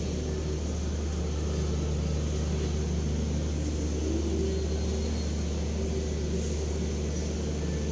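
Steady low mechanical hum with several held tones over a light hiss, unchanging throughout, like a running engine or motor.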